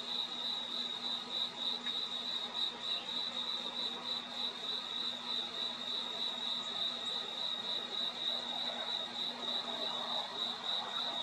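Crickets chirping in a fast, even pulse on one high note, with a faint low hum underneath.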